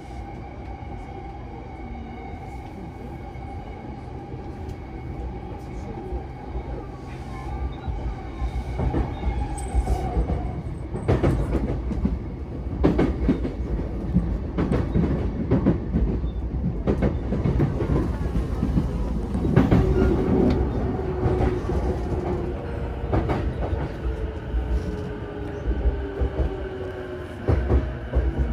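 Electric commuter train heard from inside the car while running: steady rumble of the wheels on the rails, with a run of rail-joint clicks through the middle. A steady motor whine drops away about a third of the way in, and in the second half a lower whine falls slowly in pitch as the train slows.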